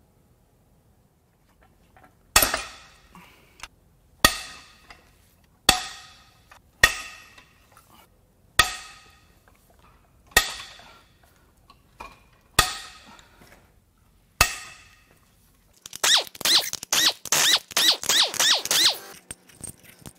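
Eight sharp metal clanks about every two seconds, each ringing out briefly, as parts and tools are handled on a bare aluminium engine. Near the end comes a quick jangling rattle of loose metal pieces.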